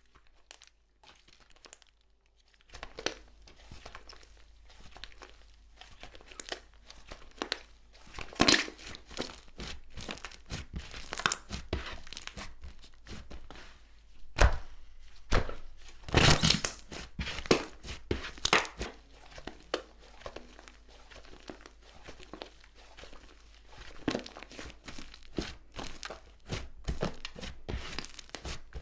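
Slime being handled, giving dense crackling, crinkling and tearing sounds with louder pops and thunks here and there, starting after a couple of seconds of near quiet.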